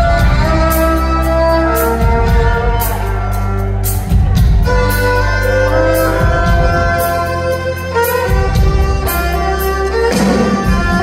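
Live rock band playing, heard from the audience: a fiddle carries long held notes over drums, bass and electric guitars.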